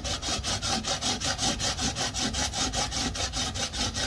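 Peeled cucumber grated on the coarse side of a stainless-steel box grater: quick, even rasping strokes, several a second, each one a wet scrape of flesh over the metal teeth.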